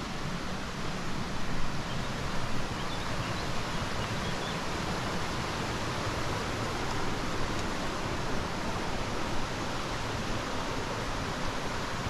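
Steady rush of water running over rocks in a stream, an even hiss, with a couple of brief louder moments in the first few seconds.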